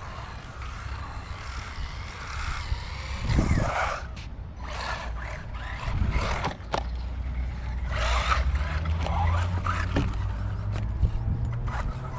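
Arrma Typhon Grom electric RC buggy driving hard on concrete: its motor whines up and down in pitch with the throttle, the tyres scrape, and there are several sharp knocks from bumps and landings, the loudest about three and a half seconds in.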